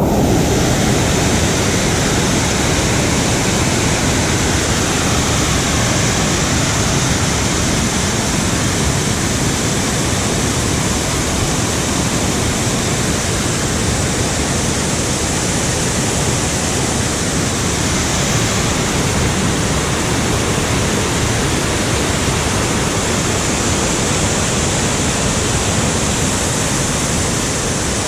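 A waterfall's loud, steady rush of falling water.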